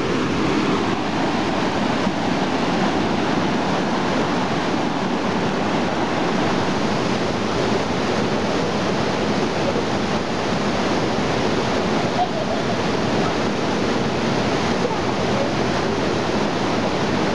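River rushing steadily below the bridge: an unbroken, even noise of fast-running water.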